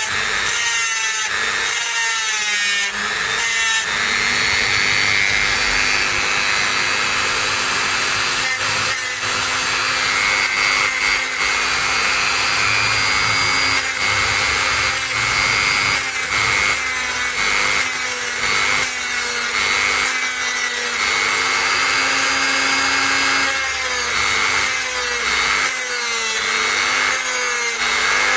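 Dremel rotary tool with a grinding stone running at speed and grinding into the package of a MOS 6581 SID chip, cutting back to expose the stub of a broken pin. A steady motor whine whose pitch dips again and again in the first few seconds and near the end, where the stone is pressed into the chip.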